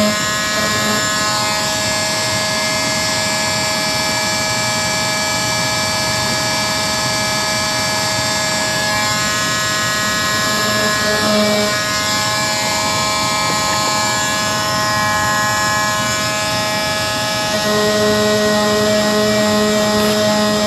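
Electric power sander running continuously on motorcycle bodywork, a steady motor whine whose pitch shifts a few times as the load on the pad changes.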